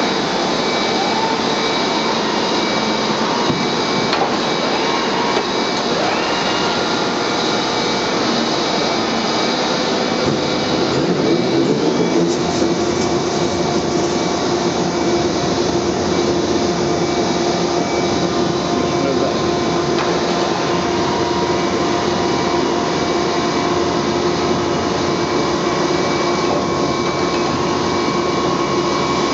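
Schiess vertical borer (vertical turret lathe) running under power: a loud, steady mechanical hum and whine from its drives. About ten seconds in a deeper hum and a steady tone join as the big faceplate table turns.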